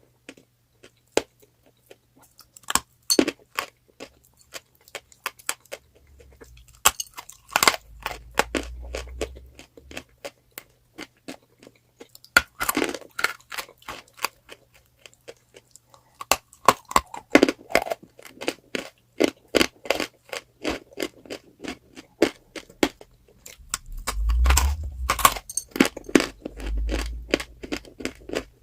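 Crunchy chalk being bitten and chewed: a dense, irregular run of sharp crunches and crackles, with low thuds twice, once partway through and once near the end.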